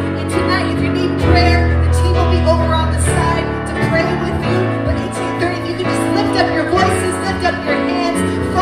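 Worship band music with held bass chords, with singing over it.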